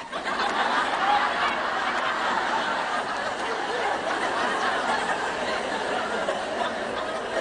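A large audience of women laughing together, a dense wash of many voices. It swells in at once and holds steady, easing off a little near the end.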